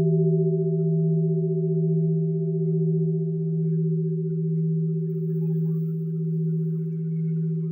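A 210 kg cast bronze bell ringing on after a strike: a deep, steady hum with a higher tone above it, wavering slowly about once a second. A still higher overtone dies away about halfway through. This light bell is voiced to sound like a bell of about one tonne.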